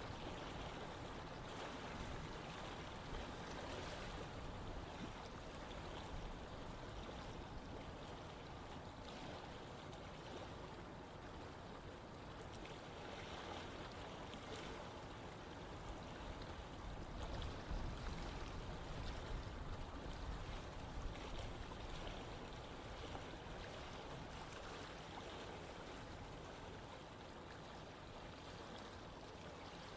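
Running water of a stream flowing over rocks, a steady, even rush with small bubbling detail.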